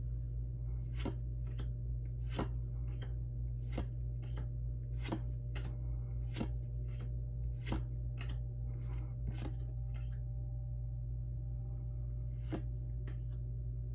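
Pokémon trading cards being flipped through by hand, each card giving a short sharp snap, about one a second or faster, with a pause of a couple of seconds before a few more near the end. A steady low hum underneath.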